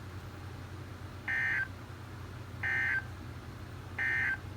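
Emergency Alert System end-of-message code played over a weather radio: three short, identical digital data bursts, a shrill two-tone squawk each, about 1.3 s apart, marking the end of the alert.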